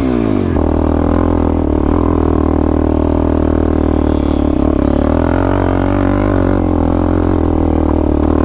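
Suzuki LTZ400 quad's single-cylinder four-stroke engine pulling up a steep hill climb. Right at the start the revs sweep up and down as the shift into second is missed, then the engine holds a steady, hard-working note under load.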